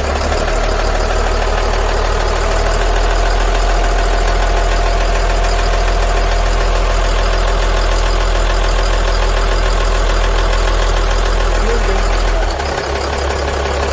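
Caterpillar 3116 inline-six diesel engine running steadily with a tapping, clunking noise whose cause the owner is asking about. The deep drone shifts and drops slightly in level near the end.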